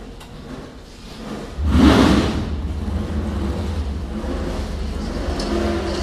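Can-Am race car's V8 engine cranking on the starter, then catching about a second and a half in with one sharp rev before settling into a loud, steady idle with a deep rumble.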